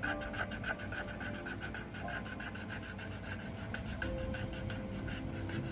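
Coloured pencil scratching on paper in quick, even back-and-forth shading strokes, several a second, as dark colour is filled into a drawing.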